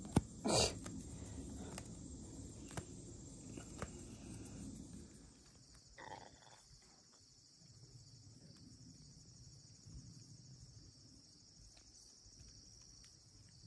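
Insects chirring steadily in a high band, faintly, under close rustling and handling noise with a sharp knock about half a second in; the rustling dies down after about six seconds.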